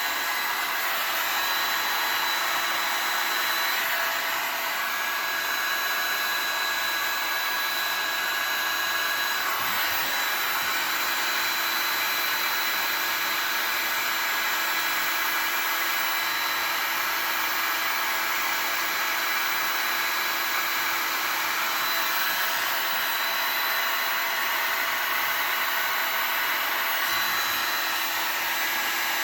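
Heat gun blowing steadily with a faint whine, shrinking heat-shrink tubing over the repaired power adapter cable.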